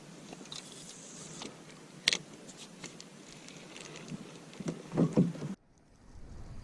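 Faint clicks and knocks of fishing gear being handled in a small boat over a low hiss: one sharp click about two seconds in and a few louder knocks around five seconds in. The sound then cuts out abruptly to near silence.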